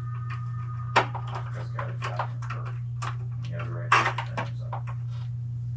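Small clicks and knocks of hand work at the water heater's element terminals, with two sharper knocks, about a second in and near four seconds, over a steady low hum.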